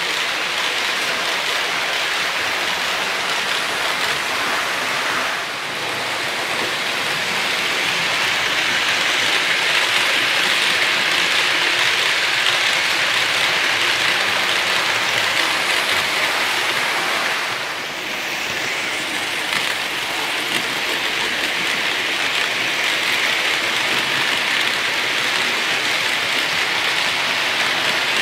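Märklin HO model trains rolling past on three-rail track, giving a steady rushing rattle of wheels on rails. It dips briefly about five seconds in and again near eighteen seconds.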